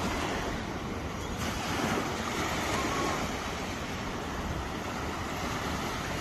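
Small waves of surf washing steadily onto the shore, with wind rumbling on the microphone.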